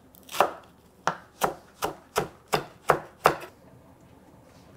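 Chef's knife chopping fresh cilantro on a wooden cutting board, about eight quick strokes at roughly three a second, then stopping.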